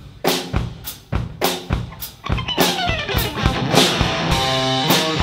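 A live rock band starting a song: the drum kit plays alone at first, about three or four hits a second, then pitched instruments come in with a falling sweep about two and a half seconds in and settle into steady chords over the drums.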